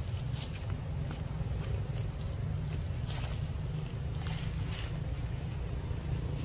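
Outdoor forest ambience: a steady low rumble with a constant thin high-pitched drone, and a few brief rustles.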